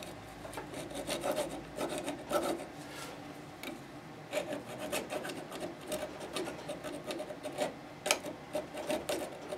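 Fine-toothed handsaw rasping in short, uneven strokes as it cuts into the heel cheek of a Martin D-41 guitar neck. It is undercutting the heel, angled so that only the inside is cut, in preparation for a neck reset.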